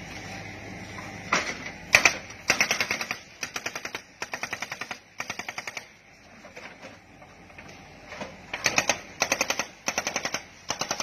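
Hydraulic breaker on a Komatsu PC70-8 excavator hammering concrete: short bursts of rapid blows, with a quieter pause of about two seconds midway.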